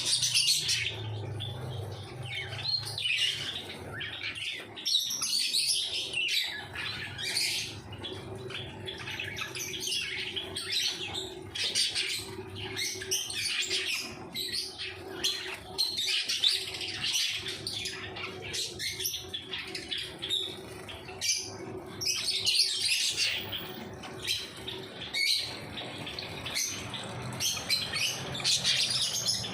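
Pet birds chirping and calling, with many short high chirps overlapping continuously, over a faint steady hum.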